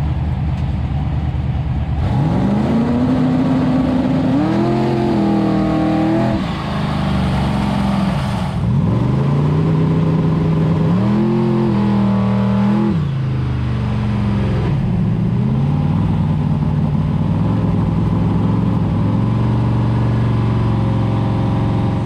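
Drag race car engine revving hard through a burnout, with the rear tyres spinning. The engine note climbs and falls several times, then holds steady for the last several seconds.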